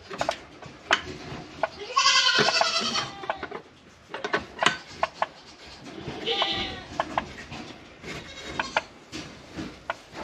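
Farm animal calls: two longer, wavering cries, one about two seconds in and one past the middle, among scattered short clicks and knocks.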